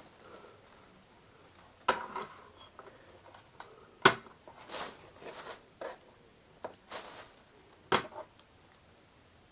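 Packaging being handled during unboxing: three sharp knocks about two, four and eight seconds in, with short rustling and scraping between them.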